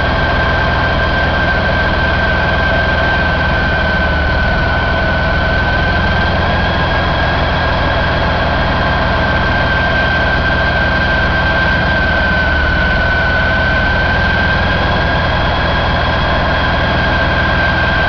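Detroit DD13 inline-six diesel engine running steadily at idle, a deep even rumble with a steady high whine over it.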